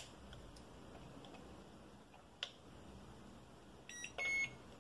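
Eachine EX4 drone remote controller being switched on: a couple of sharp clicks from its buttons and handling, then near the end a short beep followed by a longer, louder electronic beep as it powers up.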